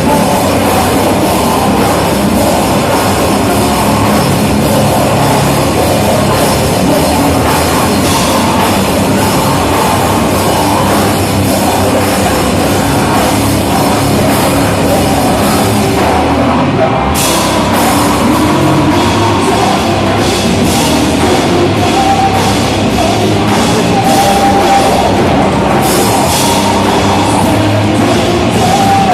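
A rock band playing loud and live, a full drum kit driving the music; the cymbals drop out briefly about two-thirds of the way through, then come back in.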